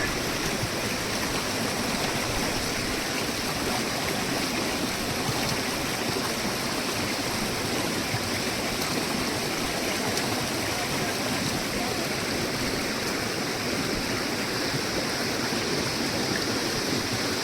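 Steady, even rush of flowing water, as of a fast mountain stream, with no breaks or separate splashes.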